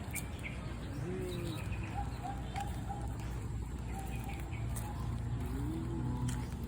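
Birds calling: two low cooing calls that rise and fall, about four seconds apart, with a row of short higher notes between them, over a steady low background rumble.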